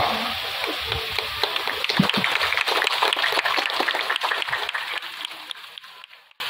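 Audience applauding, a dense patter of many hand claps that dies away over the last couple of seconds and cuts off just before the end.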